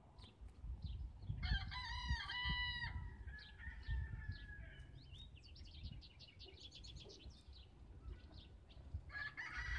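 Rooster crowing about a second and a half in, with another crow starting near the end. Rapid high chirps from other birds come in between.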